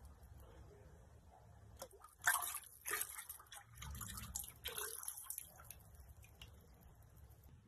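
Liquid pottery glaze sloshing and splashing in a bucket as a bisque-fired mug held in dipping tongs is plunged in and lifted out. A couple of sharp splashes come about two to three seconds in, then glaze runs and drips off the mug back into the bucket.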